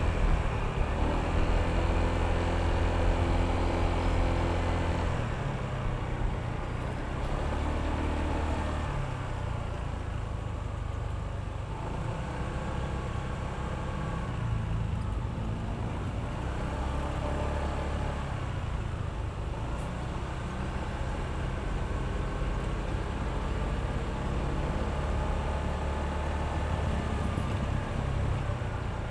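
Honda ADV160 scooter's single-cylinder engine and CVT running on the move, its pitch rising and falling with the throttle. It is louder for the first five seconds, then eases to a steadier, lower run with several gentle rises and drops.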